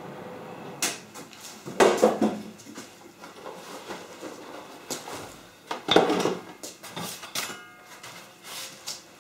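Scattered knocks and clatter of gear being handled on a stone-topped workbench, several separate sharp strikes a second or more apart, with a welding helmet set down on the bench near the end.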